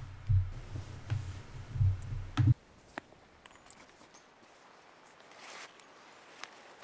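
A low, pulsing rumble with a few rustles and clicks that cuts off suddenly about two and a half seconds in. It gives way to a quiet outdoor background with a few faint ticks.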